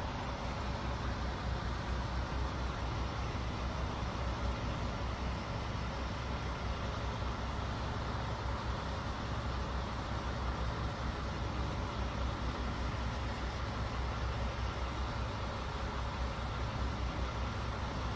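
Steady low rumble of an idling vehicle engine under an even hiss, holding the same level throughout.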